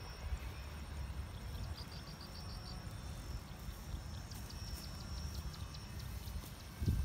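Open-field ambience: wind buffeting the microphone as a steady low rumble, with a thin steady high insect buzz and short runs of rapid high chirps.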